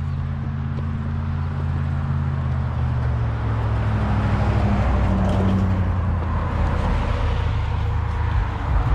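Road traffic driving past: a low engine hum with tyre noise that swells as a pickup truck goes by around the middle.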